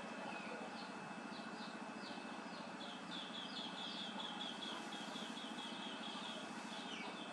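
Birds chirping in a rapid run of short, high, falling notes, fastest and densest in the middle, over a steady background hiss.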